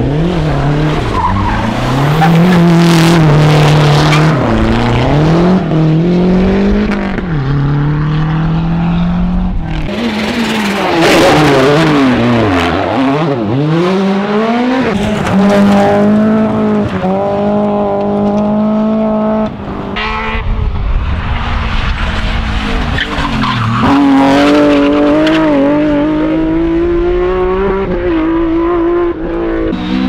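Rally cars driven flat out one after another, among them a Lancia Delta Integrale and a BMW E30, their engines revving hard and rising and dropping in pitch with gear changes and lifts, over the rush and spray of tyres sliding on loose gravel.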